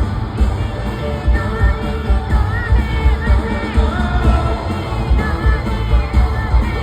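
Live pop song: a male singer singing over a band backing with a steady, heavy bass beat.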